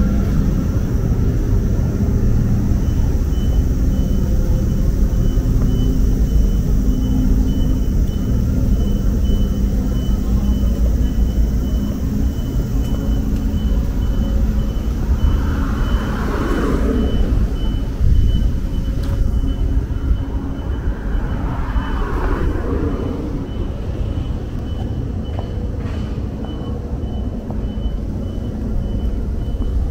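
Street traffic rumbling steadily, with a high electronic beep repeating about twice a second.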